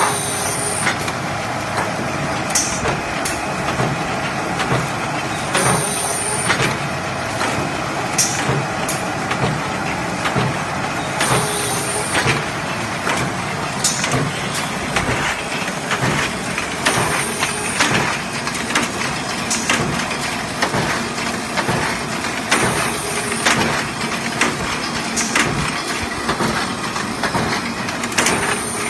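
Mawag F2-1 combi slitter with automatic sheet feeder running, guillotining and roller-slitting metal sheets: a steady mechanical clatter with many short knocks, and a brief high hiss about every six seconds.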